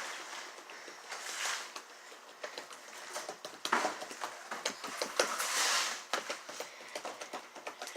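Slime being squished and poked by hand, making irregular wet clicks and crackling pops, with two longer squelches about a second and a half in and near the six-second mark.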